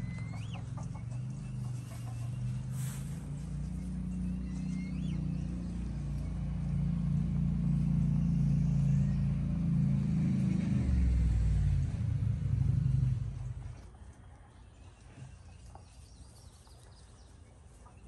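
A motor engine runs with a low, wavering hum that stops abruptly about thirteen seconds in. A bird chirps briefly twice in the first few seconds. After the engine stops, only faint rustling is left from the rabbits in the hay.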